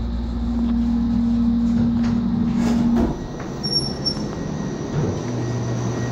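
Otis elevator car travelling with a steady hum and whine that cuts off about three seconds in as the car stops at the floor, followed by the doors opening, with a brief high tone about four seconds in.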